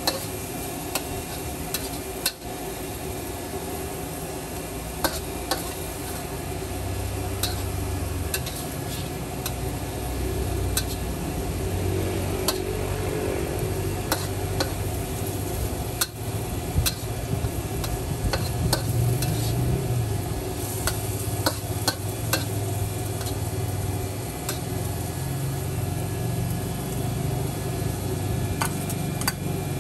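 Noodles stir-frying in a hot wok: a steady sizzle over a low rumble, with frequent sharp scrapes and clinks of a metal spatula against the wok.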